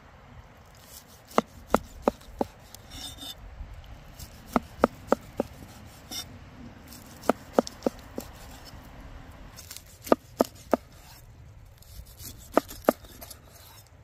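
Chef's knife slicing a seared steak on a wooden cutting board. The blade knocks against the board at the end of each cut, in quick runs of three or four knocks every two to three seconds.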